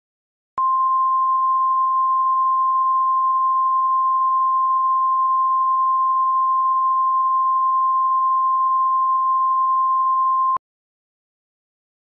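Emergency Alert System attention tone: one steady electronic tone that starts about half a second in, holds unchanged for about ten seconds and cuts off sharply, signalling that an emergency message is about to be read.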